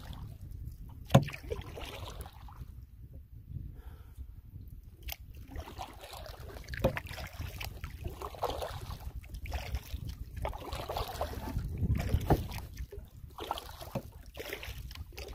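Water sloshing and lapping against a moving canoe hull as it is paddled, with steady wind rumble on the microphone. A sharp knock about a second in, with a few fainter knocks later.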